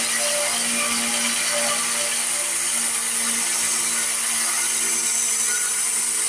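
Electric belt grinder running steadily while a knife's edge is ground on the abrasive belt to raise a burr: a constant motor hum under the hiss of the belt on steel.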